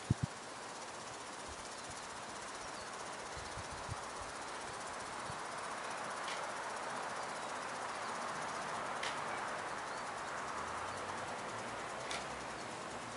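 Steady outdoor background hiss that swells and fades in the middle, with a few faint clicks.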